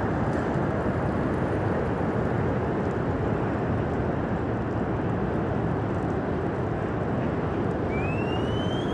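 Floodwater rushing in a dense, steady rumble. Near the end a single high-pitched call rises over it.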